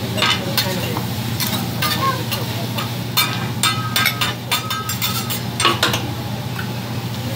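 Metal spatulas clacking and scraping on a hibachi steel griddle as sliced vegetables are stirred and flipped, with quick runs of sharp clinks that ring briefly, over frying sizzle and a steady low hum. The clatter stops about six seconds in.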